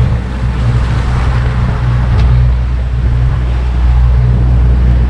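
Motorboat engine running with a steady low hum, under an even rushing noise.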